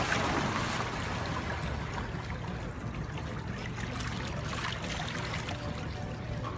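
A Rottweiler splashing as it bounds into shallow sea water, the splashing dying down within about the first second as it swims away, leaving small waves lapping over a pebbly shore.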